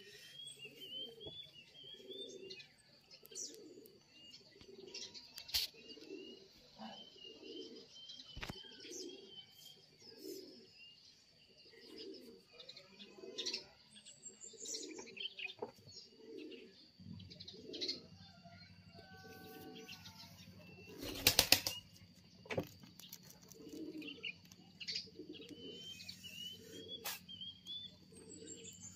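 A dove cooing over and over in a steady low rhythm, about once every three-quarters of a second, with small birds chirping in short runs. A sharp clatter sounds about three-quarters of the way through, and a low steady hum comes in shortly before it.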